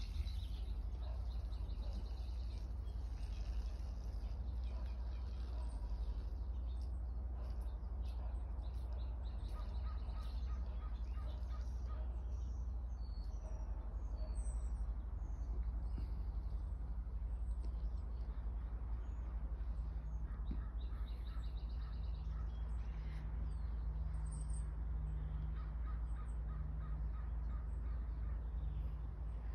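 Outdoor birds calling now and then, with short runs of quick repeated notes, over a steady low rumble.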